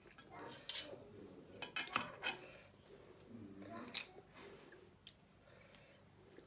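Hard shellfish shells clicking and clinking against each other and a ceramic plate as they are pried apart by hand, a few sharp clicks.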